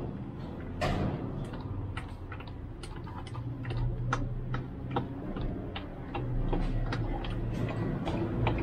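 Gear oil draining from a DSG gearbox's drain hole into a plastic-bottle funnel on a jerry can, falling as drips that make irregular sharp ticks, about two a second. A steady low hum runs underneath.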